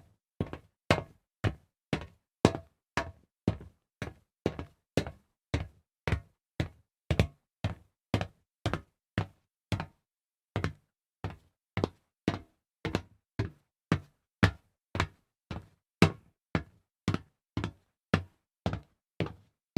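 Footsteps walking on solid metal: hard, evenly paced steps, about two a second, with a brief pause about halfway through.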